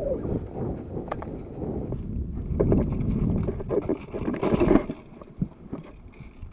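Wind noise on the camera's microphone, with rustling and knocks as the camera is jostled and swung down through tall grass; loudest between about two and five seconds in.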